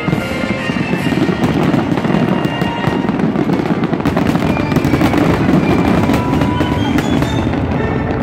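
Fireworks bursting at close range in a dense, continuous barrage of bangs and crackles over a low rumble, with music playing underneath.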